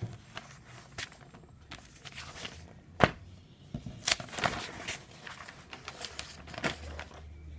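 Paper handling: newsprint pages of a newspaper-format book being turned and shifted, a string of irregular rustles and sharp knocks, the loudest about three seconds in.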